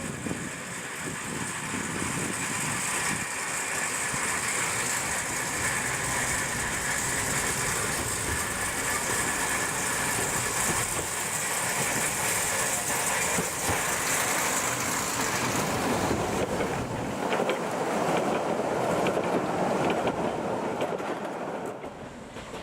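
Small minimum-gauge park train running along its narrow track: a steady rolling rumble and rattle, with a few wheel clicks over the rail joints. It fades near the end.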